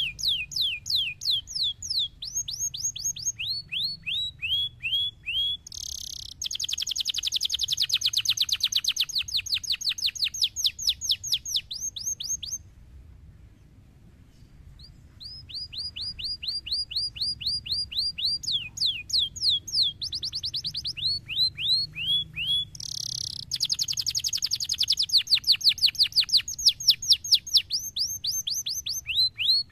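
Domestic canary singing: a long song of rapid trills, each a run of quickly repeated down-slurred notes, the speed and pitch changing from one trill to the next. The song breaks off for about two seconds near the middle, then resumes.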